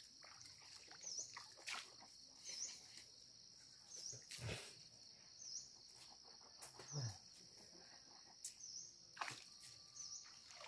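Steady high insect buzz with a short chirp repeating about once a second, over a few soft, scattered sloshes of water as hands feel about in a shallow stream.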